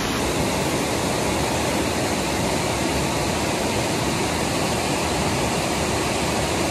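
River white water rushing over rock ledges and rapids: a steady, even rush.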